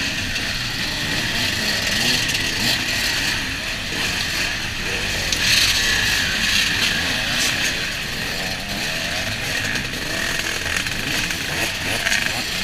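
Many off-road dirt bike engines running together and revving unevenly as a crowded pack of enduro bikes crawls through mud.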